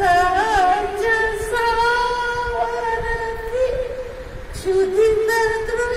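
An elderly woman singing a Marathi hymn solo, with no accompaniment, holding long notes with small wavering turns.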